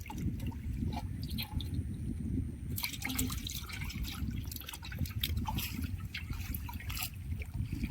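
Shallow canal water splashing and dripping as it is stirred, with many small sharp splashes and drips from about three seconds in over a steady low rumble.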